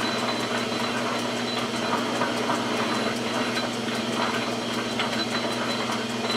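Metal lathe running steadily while a grooving tool cuts the thread relief (back cut) into a rifle barrel at the muzzle: an even machine hum with a high steady tone and light cutting noise.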